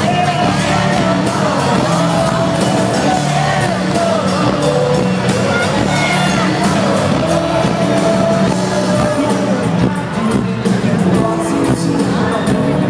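Live pop-rock band playing through a PA system, with a male lead singer carrying the melody over guitars and drums.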